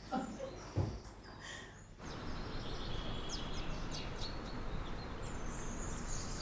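About two seconds in, a steady outdoor background noise sets in, with small birds chirping and trilling over it.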